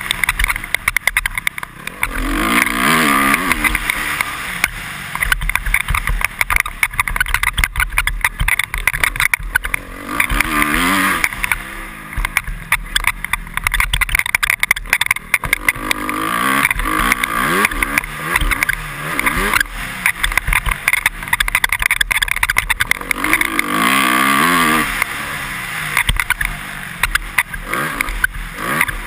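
2013 Honda CRF250R's single-cylinder four-stroke engine revving hard, its pitch climbing through the gears and dropping off several times, heard from a helmet-mounted camera. Many short clicks and squeaks from the helmet visor as the bike hits bumps run through it.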